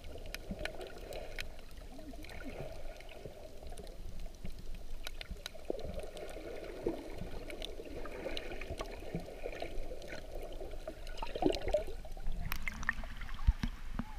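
Muffled underwater sound of moving seawater around a submerged camera while snorkeling: a low, swirling wash with scattered faint clicks. Near the end the sound changes as the camera comes up through the surface.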